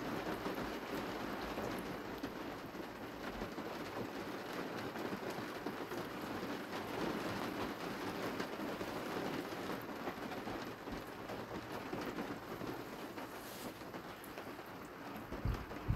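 Steady hiss of rain falling, with a couple of low thumps near the end.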